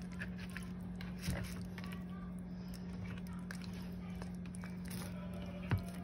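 A steady low hum, with faint clicks and two short soft knocks, one about a second in and one near the end.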